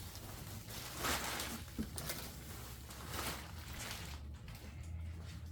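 Packaging being handled during unboxing, rustling in a few soft bursts about a second apart, over a low steady hum.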